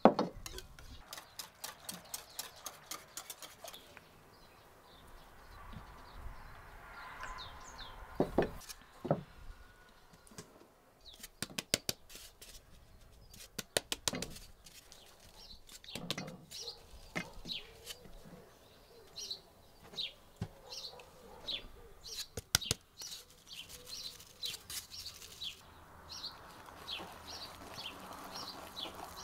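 A wire whisk clicking rapidly against an enamel bowl, then scattered knocks and a soft rushing hiss as flour is sifted through a wooden sieve into the bowl. Small birds chirp repeatedly through the second half.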